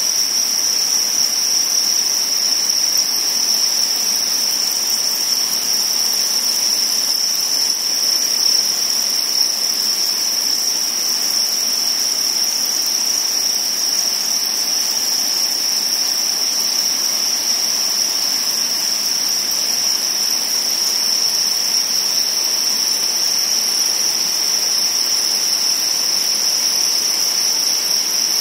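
Hundreds of farmed crickets chirping together, their calls merging into one continuous, unbroken high-pitched trill that stays at a steady level.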